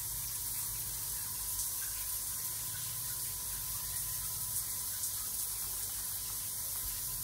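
Water spraying from a handheld shower head in a steady hiss.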